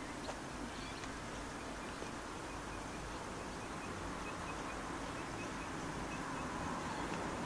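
Diesel freight locomotives approaching in the distance: a faint, even rumble that slowly grows louder. Partway through, a short run of faint, evenly spaced high chirps sounds over it.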